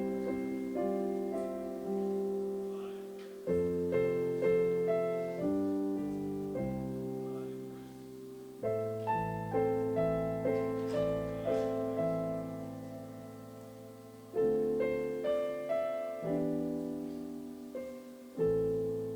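Solo piano playing a slow, quiet piece in chords. Each phrase begins with struck notes that die away, and a new phrase starts every few seconds.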